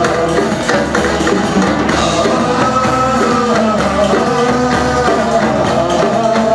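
Live Balkan gypsy-style band playing: bowed violin over a plucked upright double bass and strummed acoustic guitar, with a man's voice singing along.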